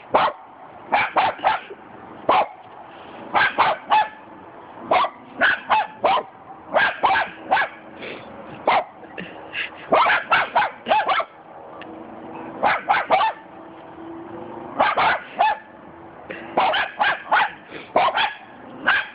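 Cockapoo barking at a cement dog statue, repeated sharp barks in quick clusters of two to five, with short pauses between clusters.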